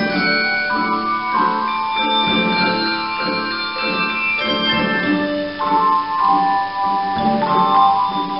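Handbell choir playing a piece on brass handbells: chords struck about once a second, each ringing on and overlapping the next.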